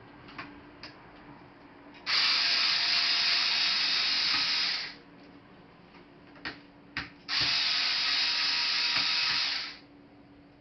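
Screwdriver backing out laptop screws: two steady mechanical runs of about three seconds each, separated by a few light clicks and taps.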